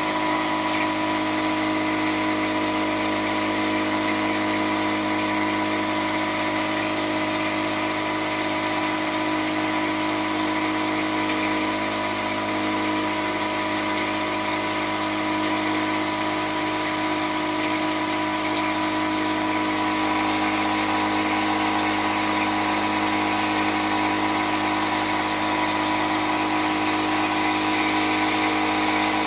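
A loud dishwasher running: a steady whine made of several held tones over a constant hiss, unchanging throughout.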